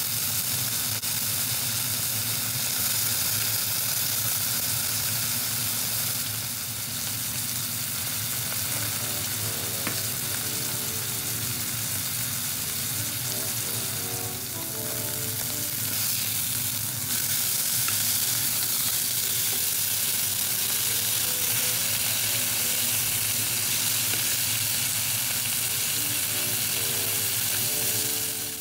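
Two beef round steaks sizzling steadily as they fry in oil in a nonstick pan. A faint melody plays underneath from about nine seconds in.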